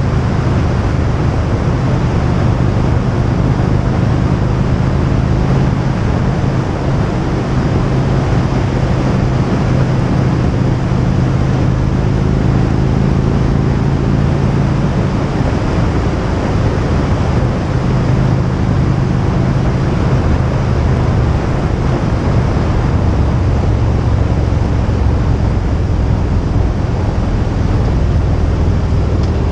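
Motorcycle engine running steadily at road speed, with wind rushing over the microphone. Its engine note drops somewhat about halfway through.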